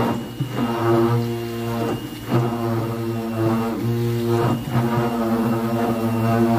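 Electric hand-held immersion blender running in a bucket of homemade soap batter, mixing it toward trace: a steady droning hum that dips briefly a few times.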